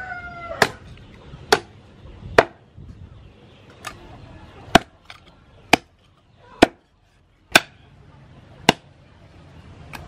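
Cleaver chopping oxtail into pieces on a wooden cutting board: about nine sharp strikes, roughly one a second.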